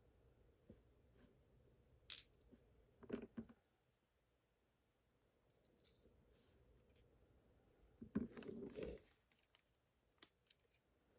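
Faint, sparse clicks and taps of small metal lock parts being handled, with a short rattle about eight seconds in: pins from a gutted pin-tumbler lock being moved about.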